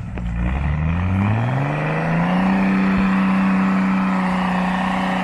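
Toyota 4x4's engine revving up over about two seconds and then held at high revs under load as it climbs a steep dirt slope, easing off right at the end.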